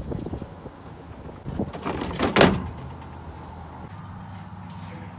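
Scrap junk clattering as it is handled and tossed, with a loud crash about two seconds in, followed by a steady low engine hum.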